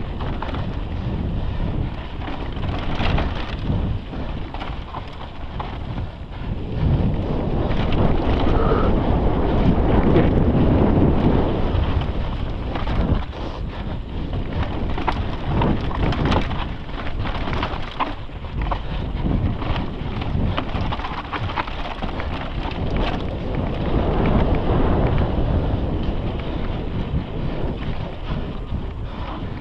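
Wind buffeting the microphone of a rider-mounted action camera as a mountain bike descends a rocky dirt trail, with the tyres crunching over dirt and stones and the bike clattering over bumps. It grows louder for a few seconds in the middle and again near the end.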